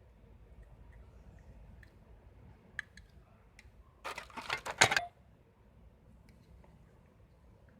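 A few faint clicks, then about a second of close, loud clattering and rattling, like small hard objects being handled.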